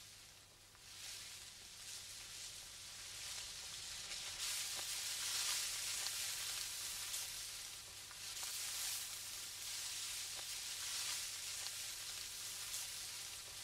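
Dry standing wheat rustling and swishing as people wade through it: a hissing, crackly rustle that swells and fades several times.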